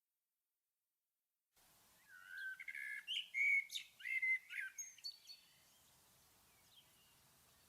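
A songbird singing one quick warbling phrase of varied, short sliding notes, followed by a couple of faint single chirps, over a light hiss. It fades in from total silence about a second and a half in.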